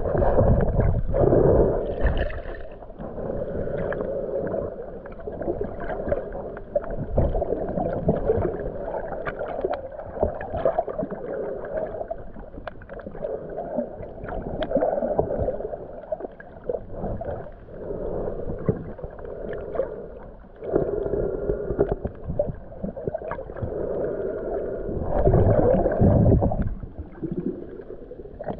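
Muffled water sloshing and bubbling heard through a camera held in the water, rising and falling in uneven surges with a low rumble and a louder surge near the end.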